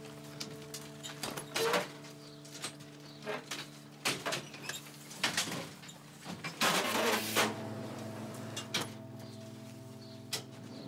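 A steady droning chord of music that shifts to a lower chord about seven seconds in, with scattered clunks and rattles over it and a longer noisy rush as the chord changes.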